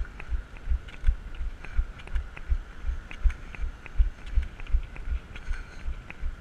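Running on crutches: a steady rhythm of low thumps, about three a second, each with a light click, as crutches and feet strike the road.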